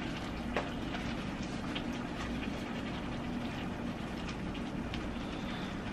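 Steady low rumbling hum of background noise, with faint scattered clicks and a small tick about half a second in.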